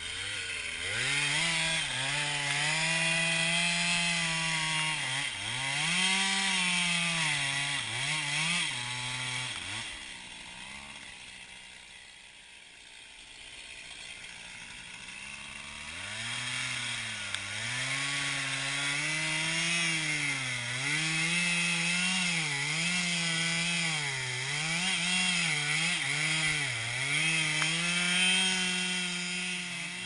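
Two-stroke chainsaw cutting into the base of an oak trunk, its engine pitch repeatedly dipping and recovering as the chain bites under load. About ten seconds in the saw eases off and goes quiet for about five seconds, then cuts again with the same rise and fall.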